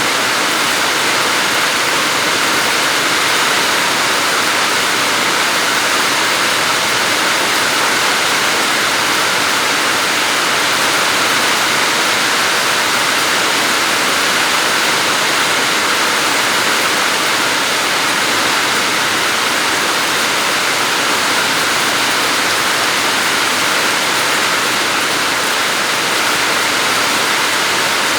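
Floodwater rushing past, a loud steady wash of moving water that does not change.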